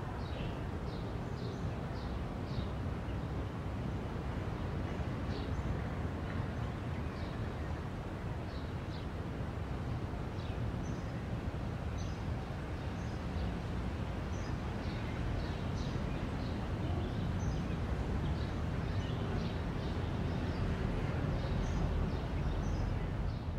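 Outdoor city ambience: a steady low rumble with birds chirping in short, scattered calls throughout.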